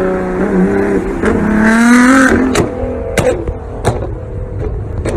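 Nissan GT-R's twin-turbo V6 revving, its pitch climbing for under a second, then four sharp exhaust cracks as it pops and backfires off the throttle.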